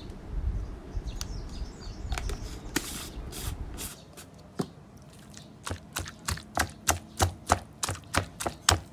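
Stone pestle working wet chilli and shallot paste in a stone mortar. In the first half it gives uneven grinding and scattered knocks; from about halfway it settles into steady pounding at about three strokes a second.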